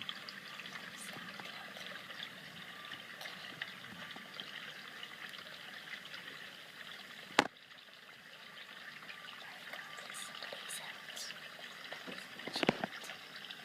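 Steady trickle of water, with a sharp click about seven seconds in and another near the end.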